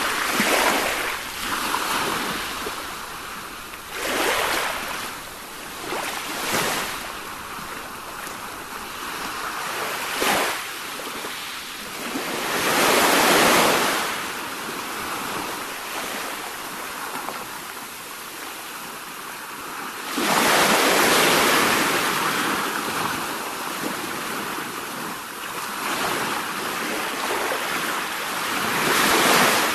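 Sea waves breaking on a shore: a steady wash of surf that swells into louder breakers several times, the biggest about 13 seconds in and again around 21 seconds.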